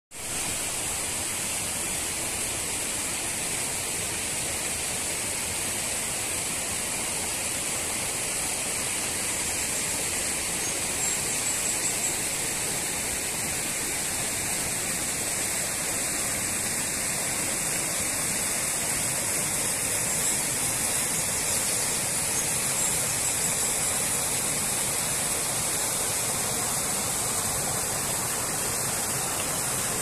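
Rocky stream rushing over stones and a small cascade: a steady, unbroken rush of water.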